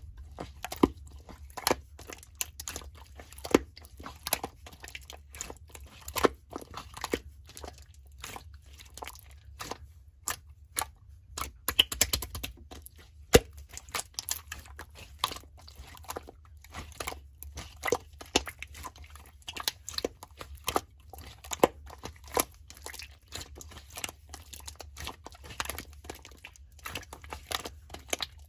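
Slime being squeezed, stretched and poked by hand: a dense, irregular run of sticky clicks, pops and crackles, several a second.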